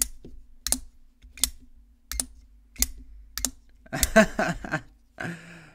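Kizer Mini Sheepdog double-detent folding knife flicked open and popped shut over and over, the blade snapping against its detent each time. Six sharp clicks come about two-thirds of a second apart.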